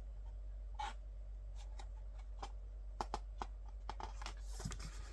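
Pages of a thick photobook being handled and turned: soft paper rustles and a scatter of light clicks and taps, over a low steady hum.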